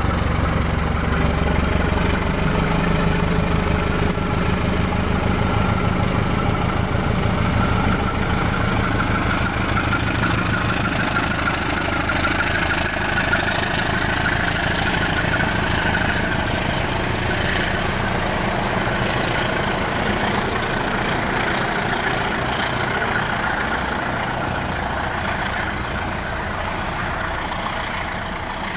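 CC 201 diesel-electric locomotive (a GE U18C) running past with its diesel engine loudest in the first few seconds, followed by the steady rolling noise of its passenger coaches on the rails, easing slightly near the end.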